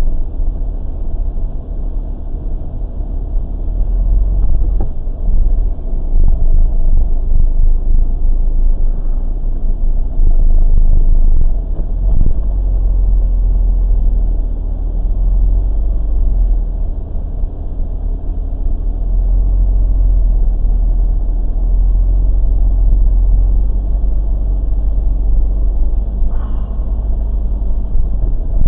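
Car being driven on a snow-covered road, heard from inside the cabin: a steady low rumble of engine and tyres.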